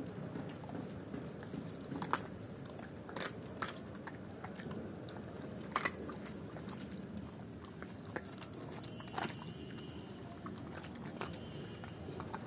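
German Shepherd chewing raw chicken legs, with a handful of sharp, irregular crunches as the bones break between its teeth.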